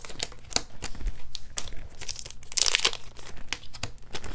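Foil Pokémon card booster pack wrappers crinkling as they are handled and opened, with many small crackles and a louder crinkle about two and a half seconds in.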